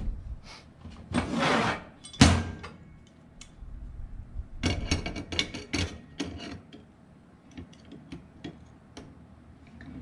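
Hand tools working on the metal parts of an old ceiling fan while a nut is worked loose: a scrape, a sharp clack a little after two seconds, then a cluster of clicks and rattles and a few faint ticks.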